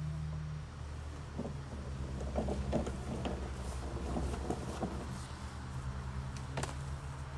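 Corded electric mulching lawn mower running with a steady motor hum, with scattered crackles and ticks through the middle and a sharp click near the end.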